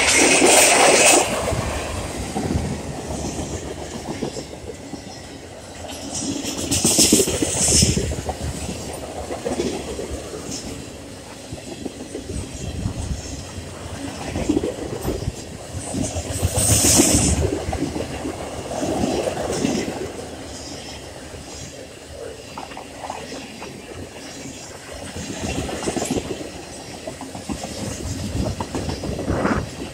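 Freight train cars, covered hoppers and then tank cars, rolling past close by with the wheels clattering over the rail joints. The noise swells and fades, with louder rushes about seven and seventeen seconds in.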